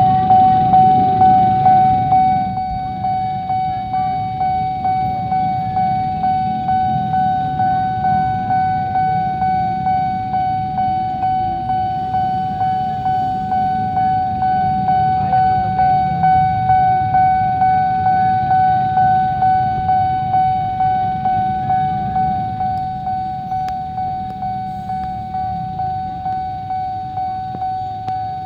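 Railway level-crossing warning bell ringing over and over, about two strikes a second, each strike a single high ringing tone that fades quickly. Underneath is the low rumble of idling motorcycle and car traffic held at the lowered barrier.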